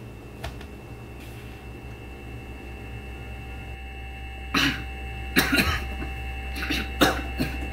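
A man coughing into his fist, a run of short coughs starting a little past halfway, over a steady low hum.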